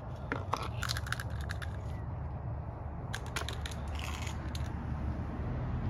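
Carburetor cover being unfastened and taken off a Husqvarna 360BT backpack leaf blower: scattered sharp clicks and clatter in two bunches, over a steady low hum.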